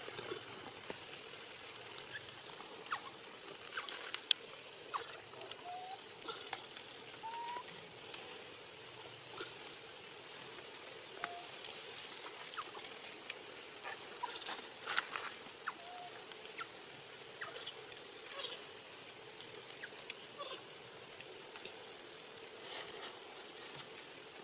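Outdoor ambience: a steady high-pitched insect drone, with scattered sharp clicks (the loudest about four seconds in and again around fifteen seconds in) and a few short, faint chirps.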